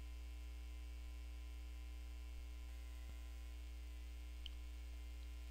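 Steady electrical mains hum: a low drone with a faint buzz of overtones above it, unchanging throughout.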